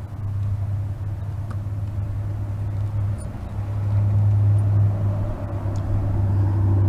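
Steady low rumble of outdoor background noise that swells slightly about three to four seconds in, with a few faint light clicks.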